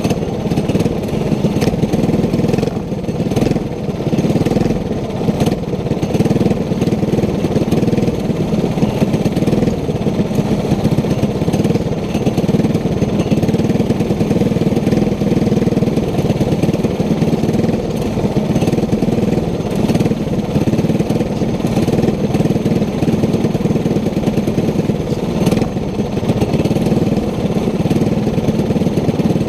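Racing go-kart engine running steadily, holding a fairly even pitch and level with no clear revving up or down.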